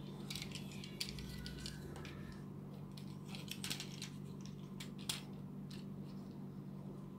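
Plastic transforming robot toy being worked by hand: small clicks and snaps as its joints and panels are folded and pegged into place, a few sharp clicks about a second in, more around four seconds, and the loudest near five seconds.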